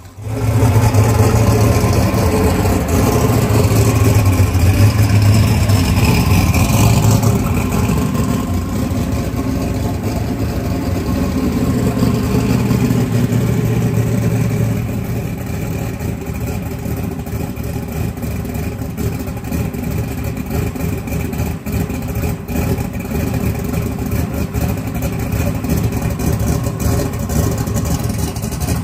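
Engine of a blue New Edge Ford Mustang drag-radial race car running loudly at idle, with some revving. It is loudest for about the first fifteen seconds, then settles into a steadier, slightly quieter idle.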